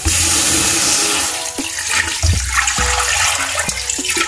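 Water poured from a container into an aluminium pressure cooker onto raw beef mince: a loud splashing rush, strongest for the first second and a half, then easing off.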